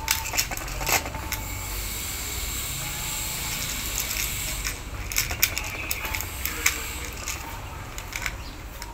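Calico cat chewing dry kibble: irregular short crunches in clusters, several near the start and another run in the second half, over a steady low rumble and hiss.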